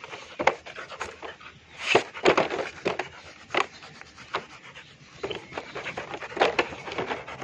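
Rottweiler panting heavily, mouth wide open, in irregular breathy strokes, winded from rough play.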